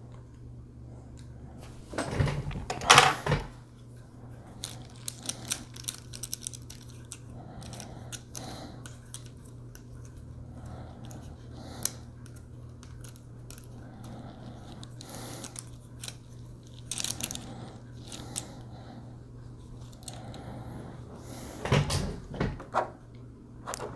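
Small plastic accessory parts and clear plastic clamshell packaging being handled: scattered clicks, taps and rattles, with louder crinkling and knocking about two seconds in and again near the end, over a faint steady hum.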